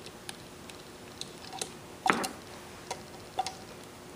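Scattered light clicks and taps from hand handling, with one louder knock about two seconds in.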